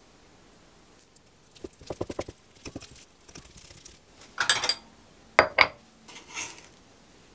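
A broad kitchen knife working on an end-grain wooden cutting board, scraping salted pollock roe out of its sac. There is a run of quick light taps about two seconds in, then the blade scraping across the board, two sharp knocks on the wood a little after five seconds, and a last short scrape.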